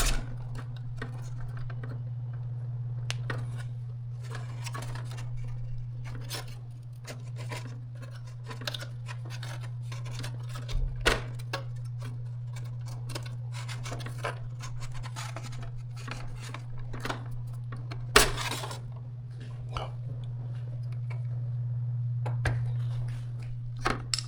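Metal parts and tools clinking and clattering as an electronic instrument's panels and modules are handled and taken apart, with one louder knock about three-quarters of the way through, over a steady low hum.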